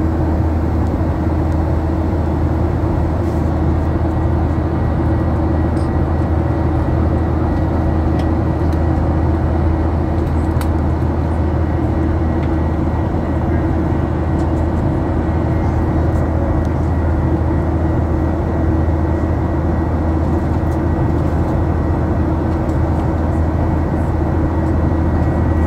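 Steady cabin noise of a jet airliner climbing after take-off, heard inside the cabin: a constant low engine drone and rushing airflow, with a faint steady high whine.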